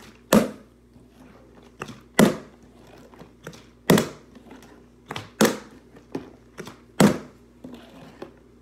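A partly filled plastic drink bottle being flipped and landing on a wooden floor again and again: five sharp thuds about every one and a half to two seconds, with a few lighter knocks between them.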